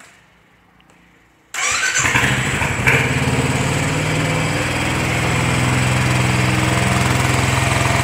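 Royal Enfield Classic 350's single-cylinder engine started from cold with the choke on. It catches about a second and a half in and settles into a steady idle.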